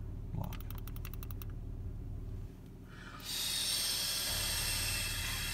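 A 1999 Infiniti I30's V6 engine idling, heard from inside the cabin, with a quick run of about ten ratcheting clicks about half a second in. From about three seconds in, a loud, even hiss takes over.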